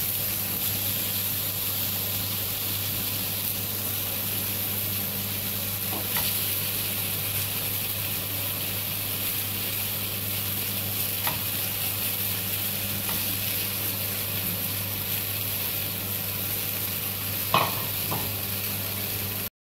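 Chicken pieces and chopped vegetables sizzling steadily as they fry in a pan, with a low hum underneath. A few light clicks come through, the sharpest near the end.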